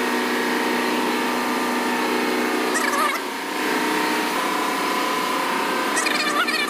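Steady drone of running ship's engine-room machinery, a hum made of several steady tones. Brief voices call out about three seconds in and again near the end.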